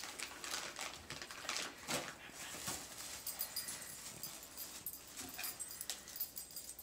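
Plastic wrapping crinkling and cardboard rustling as dog toys are pulled out of a box, mixed with faint dog noises from a chocolate Labrador.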